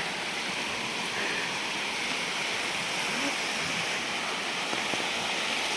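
Steady rush of a waterfall's falling water, an even noise that does not change. Faint voices show briefly about three seconds in.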